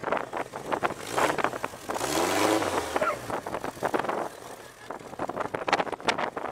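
Dune buggy engine revving as it climbs over a sand dune, its pitch dipping and rising again around two seconds in, amid many short rough crackles.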